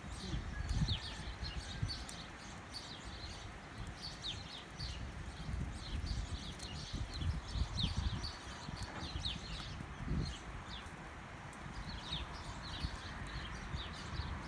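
Small birds chirping over and over, short high chirps that slide downward, several every second or two. Irregular low rumbling runs beneath them.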